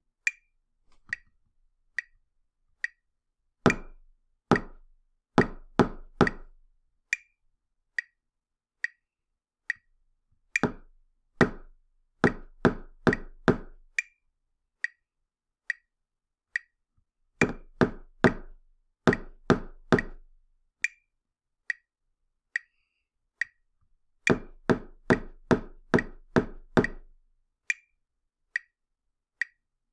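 A steady click beat at a little over one click a second, with a sharp percussive sound playing four-beat rhythm patterns over it: one stroke for each quarter note and two quick strokes for each pair of eighth notes. Each pattern is followed by four beats of the click alone, a gap left for the echo.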